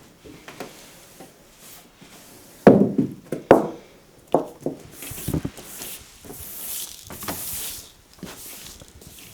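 Kitchen work: a few hard wooden knocks with short ringing tails, then softer knocks and a brief rustling hiss.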